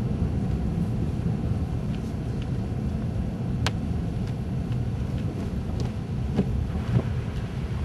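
Steady low rumble of a car's engine and road noise heard inside the cabin, with a sharp click about three and a half seconds in and a couple of faint knocks near the end.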